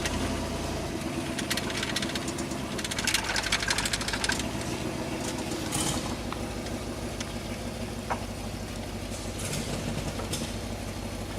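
2000 Ford Explorer engine, freshly reassembled with the intake manifold just refitted and much still unhooked, running loud and rough. A rapid clattering tick comes in about a second and a half in and stops about three seconds later. The engine sounds like a lawnmower.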